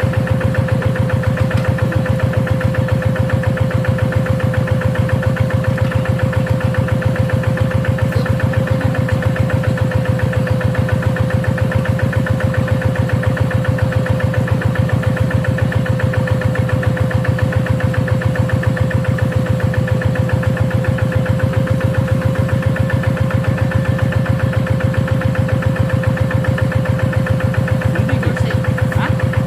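Engine of a G1000 walk-behind rice-field hand tractor running at a steady speed: a rapid, even chugging with a steady tone over it.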